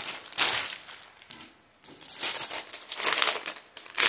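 Foil party balloons and a thin plastic bag crinkling as they are folded and handled, in several short bursts with a brief lull about a second and a half in.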